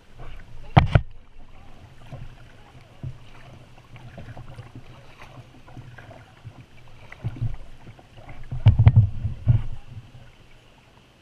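Kayak on moving water: paddle strokes and water slapping the hull, with a sharp knock about a second in and a run of louder knocks and splashes near the end.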